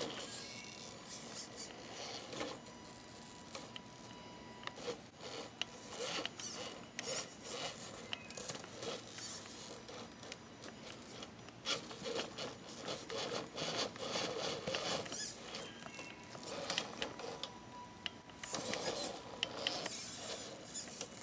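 Radio-controlled scale rock crawler working its way over rocks. Its small electric motor and gears whir in short spurts, while the tyres and chassis scrape and click irregularly against the stone.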